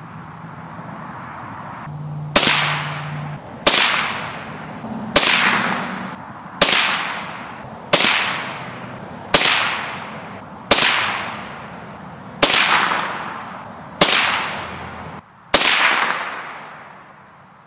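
Ruger 10/22 semi-automatic rifle firing Aguila Interceptor 40-grain .22 LR hyper-velocity rounds: ten sharp shots, about one every second and a half. Each shot rings off over about a second.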